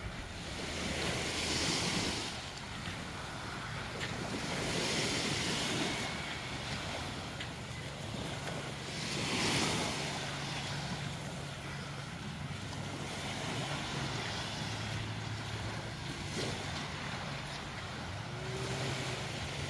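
Small waves washing up on a sandy beach, the hiss of each wash swelling and fading about every four seconds. A steady low engine hum runs underneath.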